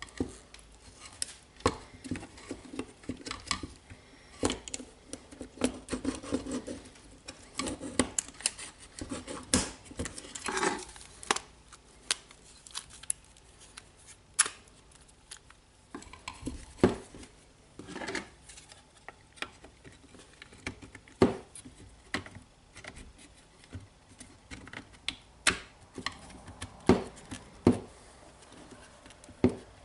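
Cordless drill being reassembled by hand: irregular clicks, taps and knocks of hard plastic and metal parts as the gearbox is fitted into the plastic housing and the drill is handled on a wooden table.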